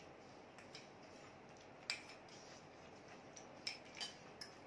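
Faint eating sounds: a few light, scattered clicks of a metal spoon against a glass bowl, over a quiet room background.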